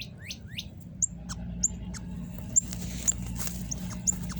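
Northern cardinals giving sharp, high chip calls about every half second, with a few quick rising notes near the start; a steady low hum underneath.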